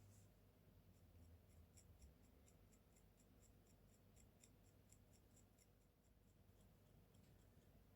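Very faint, quick light scratches, about four a second, of a tool scoring soft clay to roughen it for attaching a beak; otherwise near silence.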